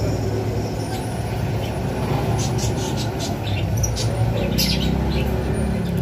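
Lovebirds chirping in short, high notes, scattered and more frequent in the second half, over a steady low rumble.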